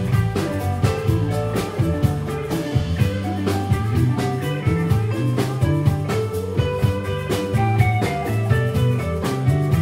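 A live band playing a song, with guitar over bass and drum kit keeping a steady beat.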